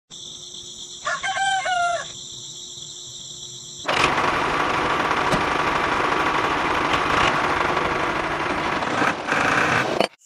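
A rooster crows once, about a second in, over a steady high-pitched hum. From about four seconds a loud, steady, noisy sound takes over and cuts off suddenly near the end.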